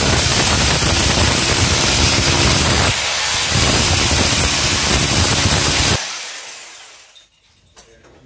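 Power drill boring through a masonry wall, loud and steady, easing briefly about three seconds in; it stops about six seconds in and the sound dies away.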